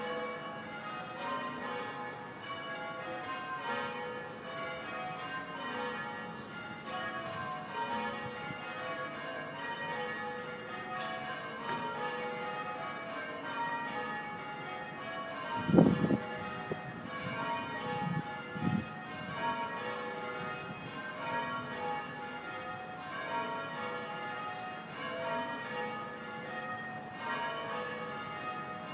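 Tower bells of Perth's Bell Tower (the Swan Bells) rung in change ringing: a continuous run of bell strikes one after another in an even rhythm. A few low thumps come about halfway through, the first the loudest.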